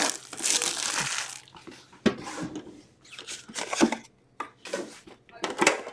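Hockey card pack wrappers being torn open and crinkled by hand, with the cards handled: a long crinkle for the first second and a half, then short scattered rustles and snaps.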